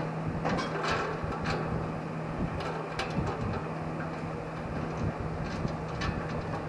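A steady low mechanical hum with scattered metallic clicks and rattles, most of them in the first second and a half, from handling the funnel spreader's parts.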